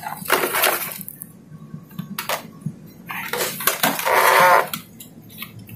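Hands handling a plastic fibre-optic media converter, its power adapter and cables: scattered clicks, knocks and clatter, with a longer rustle about four seconds in while the power plug goes to a wall power strip.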